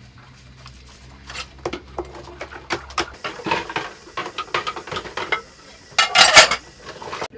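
Plates and cutlery clinking and knocking as dishes are handled, in an irregular run of clinks with a louder clatter about six seconds in.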